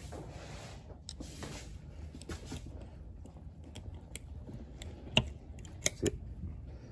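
Small screwdriver scraping and clicking against the steel coil spring and cam halves of a Lokka automatic diff locker as the spring is levered into its slot. Three sharp metallic clicks come about five to six seconds in.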